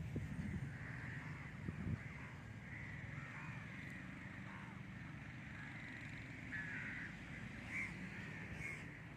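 Birds calling now and then, over a steady low rumble.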